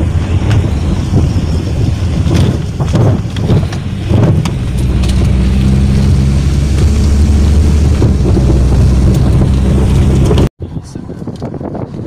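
Car engine and road noise heard from inside a sedan's cabin as a steady low drone, with a few knocks about two to four seconds in. After a sudden cut near the end, wind rushing over the microphone from the moving car.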